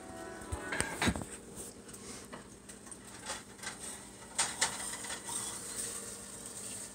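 Scattered knocks and rubbing from a phone camera being handled and moved, over a faint steady hum.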